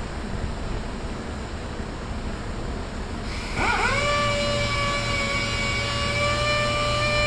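A big fan blowing steadily; about three and a half seconds in, a handheld orbital sander spins up with a quick rising whine and then runs at a steady pitch against the fiberglass boat hull, sanding down filler patches.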